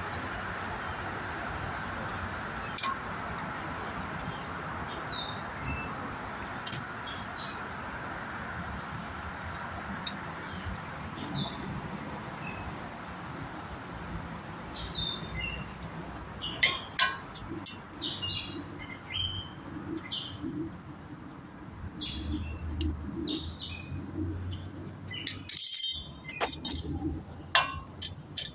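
Small birds chirping repeatedly, busier in the second half, over a low steady background hum. Scattered sharp clicks and clinks of metal tools are heard throughout, and there is one brief loud clatter near the end.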